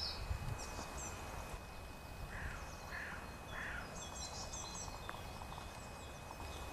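Quiet outdoor ambience of small birds chirping and twittering, with three short calls about half a second apart a little over two seconds in, over a low rumble of wind noise.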